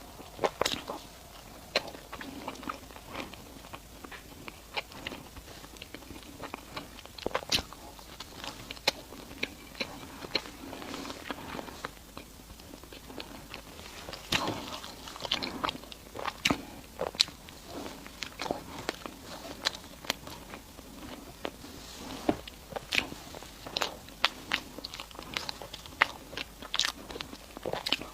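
Close-miked chewing and biting of sweet food, with many short sharp mouth clicks and smacks coming irregularly throughout.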